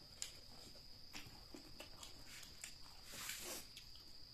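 Close-miked mouth sounds of eating spicy chicken feet and rice by hand: scattered lip smacks and chewing clicks, with a brief louder hiss-like noise about three seconds in. A steady high cricket trill runs underneath.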